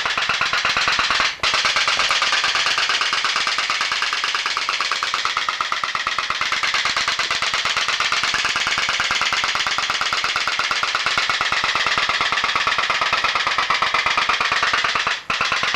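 Seven-tube pop-pop boat diaphragm engine with an aluminium diaphragm running, making a rapid, steady, really loud popping rattle. The popping briefly drops out about a second and a half in and again near the end.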